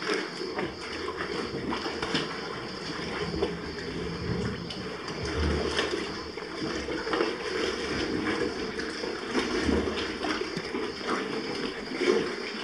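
Sea water sloshing and lapping right at the microphone, with small irregular splashes and gurgles.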